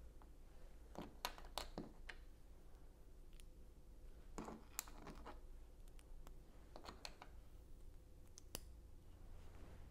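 Plastic LEGO pieces clicking and tapping as small floor tiles are handled and pressed onto a plate: scattered faint clicks with pauses between, a short cluster about halfway through.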